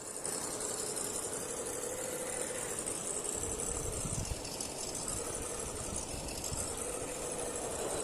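RGT EX86010-CJ 1:10 RC crawler's electric motor and gearbox whining as it drives, the pitch wavering with the throttle, with a low rumble around the middle.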